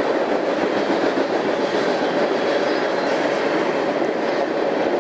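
Freight train rolling past, its steel wheels clattering steadily along the rails in a continuous, even noise.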